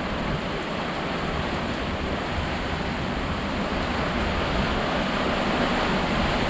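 Heavy rain pouring steadily in a thunderstorm windstorm, a dense even hiss of water with wind behind it, growing slightly louder toward the end.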